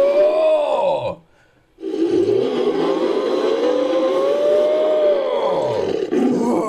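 Layered monster-ape roar sound effect, mixed from animal roars, ape calls and a human voice: one roar ends about a second in, and after a short break a long roar of about four seconds rises and falls in pitch, with another starting near the end.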